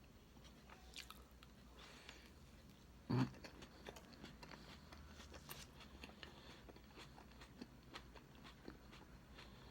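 Close-up eating sounds of a person chewing cake: soft mouth clicks and smacks, with one louder knock about three seconds in.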